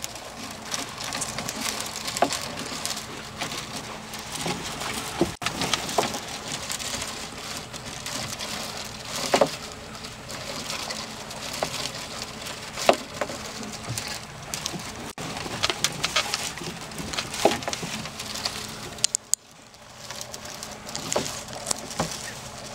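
Gill net being paid out over the side of a slowly moving boat: patter, splashing and dripping as the wet mesh runs into the water, with irregular clicks and knocks of the net and its lines against the hull, over a faint steady low hum.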